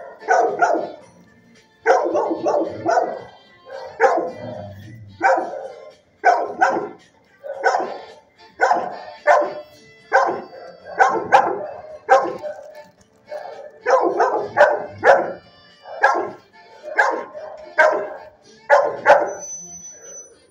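Dog barking repeatedly in a shelter kennel, one or two barks about every second.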